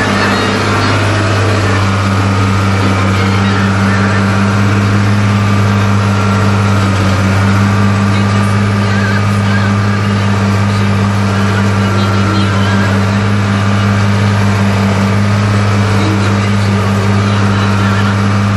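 Fiat 1000 Super tractor's diesel engine running steadily under load, pulling a plough.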